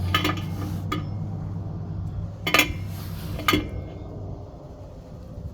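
Metal clinks of a wrench on an air-line fitting as it is tightened: a few sharp clinks with a short ring, the loudest about two and a half and three and a half seconds in.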